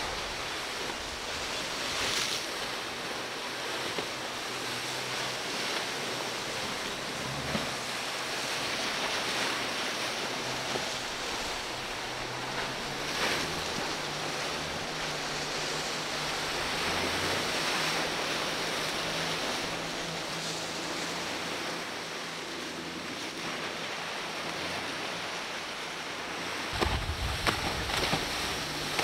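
Surf, boat wash and spray hissing steadily, with wind buffeting the microphone and the low hum of outboard motors on boats running through choppy water. The low rumble and gusts grow louder near the end.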